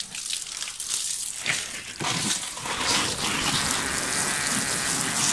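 Water sprinkled in many fine streams onto a tray of loose potting soil mix, a steady splashing patter that gets heavier about two seconds in and stops near the end, wetting the fresh mix.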